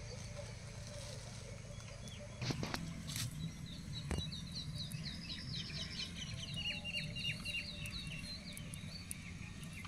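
A few sharp knocks between about two and a half and four seconds in, as raw eggs are laid into a steel pot, then a small bird singing a long run of quick, high, repeated chirping notes until near the end.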